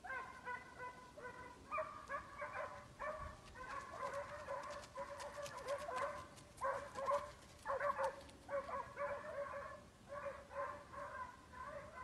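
Scent hounds giving tongue while working a trail: a fast, near-continuous run of short, high yelping bays, overlapping at times, that starts suddenly and stays faint.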